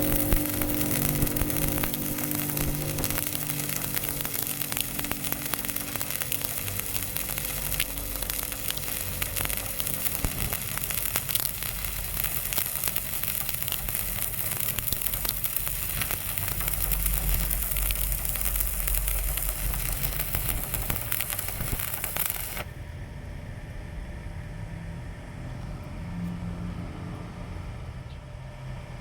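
Electric welding arc crackling and sizzling steadily, then cutting off suddenly about three-quarters of the way through, leaving a low hum.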